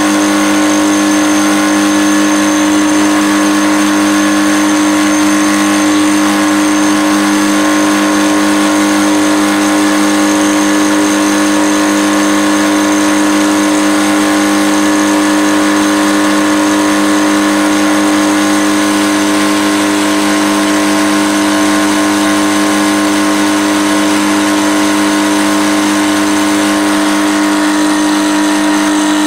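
Drill press converted to a mill, running steadily with a constant hum while its indexable carbide-insert end mill cuts a hardened steel lathe tool holder.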